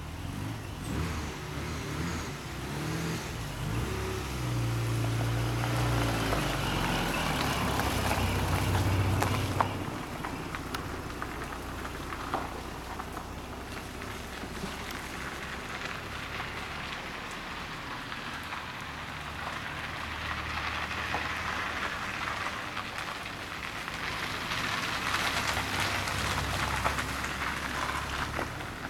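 VW Golf GTI 16V Mk2's 1.8-litre four-cylinder engine running, its pitch shifting several times and loudest about nine seconds in, then a steady hiss of tyres on wet tarmac as the car moves off.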